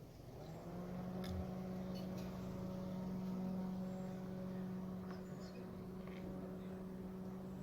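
A steady motor hum that comes up about half a second in and then holds at one pitch, with a few faint clicks over it.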